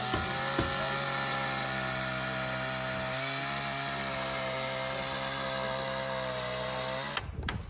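A motor running at a steady pitch, cutting off suddenly about seven seconds in.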